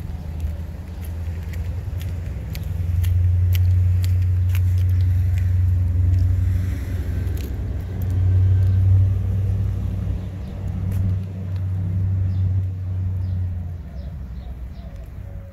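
Low, steady rumble of a motor vehicle's engine running close by. It swells a few seconds in and eases off near the end, with light clicks over it.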